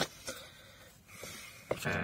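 A man's strained, wheezy breath while straining at an awkward reach, with a light click at the start and another near the end from his hand and the door's plastic parts.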